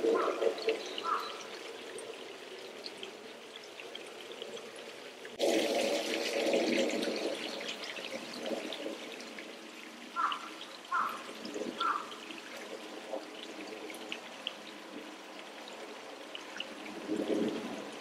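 Running water trickling and pouring, a steady splashing hiss that changes abruptly about five seconds in. Around ten to twelve seconds in, three short higher notes come about a second apart.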